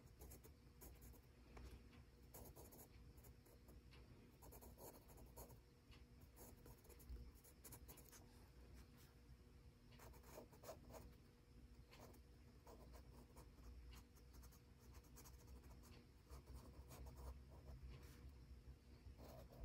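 Faber-Castell Pitt Graphite Matte HB pencil drawing on gray sketchbook paper: faint scratching of the graphite tip in short, irregular strokes.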